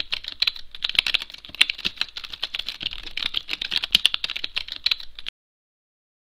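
Computer keyboard typing sound effect: a rapid, uneven run of key clicks that stops abruptly about five seconds in.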